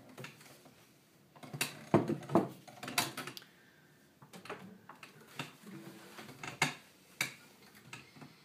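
Scattered light knocks and clicks, irregular and densest about two to three seconds in.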